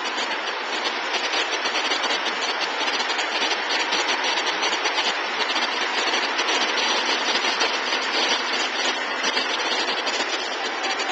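Multi-head commercial embroidery machines running, their needle heads stitching in a dense, steady mechanical clatter.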